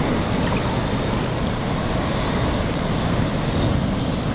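Steady wind noise rumbling on the microphone outdoors, with no distinct sound from the model boat standing out.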